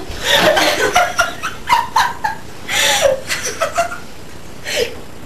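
Laughter in short, broken bursts, easing into a lull for about a second near the end before one more burst.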